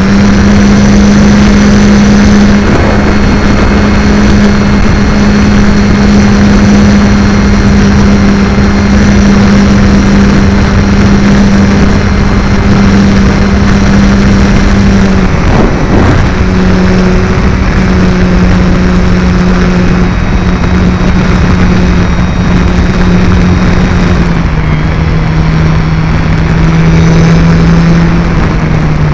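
Multiplex FunCub's electric motor and propeller, recorded close up by the plane's onboard camera: a steady buzzing drone under heavy wind rush on the microphone. Its pitch drops in steps about halfway through and again near the end as the throttle is eased back.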